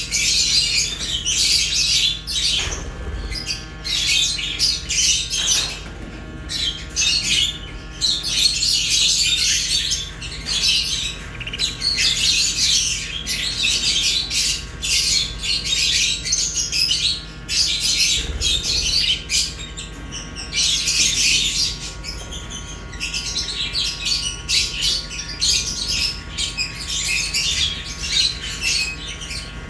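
A flock of budgerigars and lovebirds chirping and squawking continuously, many birds calling over one another in a dense, high-pitched chatter.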